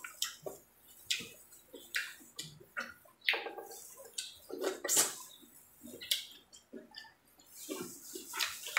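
Close-up wet eating sounds: a person chewing and smacking on seafood, with irregular clicks and crackles from the food and the plastic gloves.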